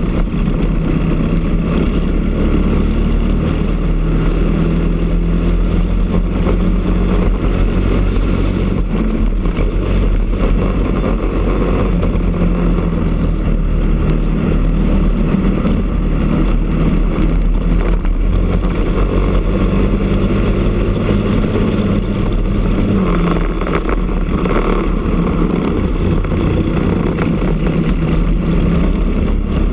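Briggs & Stratton LO206 single-cylinder four-stroke kart engine running hard at racing revs, its note shifting slightly in pitch as the kart speeds up and eases through the corners.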